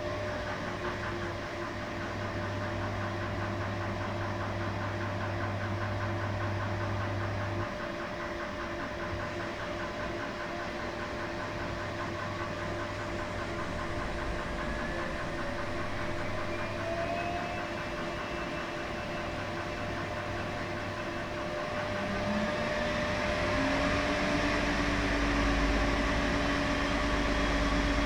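Washing machine running, a steady hum with a motor whine that rises in pitch as the drum speeds up, first around the middle and again with a lower tone climbing near the end.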